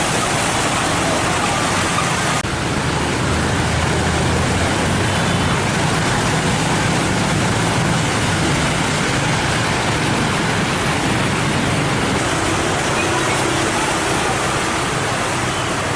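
Heavy rain falling in a steady loud hiss, with a low rumble underneath. The sound changes abruptly about two and a half seconds in and again near twelve seconds.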